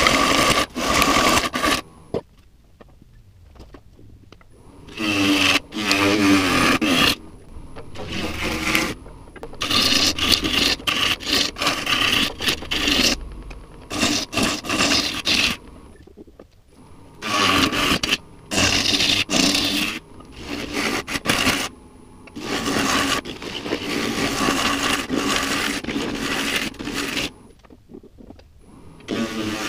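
Bowl gouge cutting into a spinning silver maple crotch bowl on a Powermatic wood lathe, a dense rasping scrape as the inside is hollowed. It comes in repeated cuts several seconds long, with quieter gaps between them and a longer lull near the end.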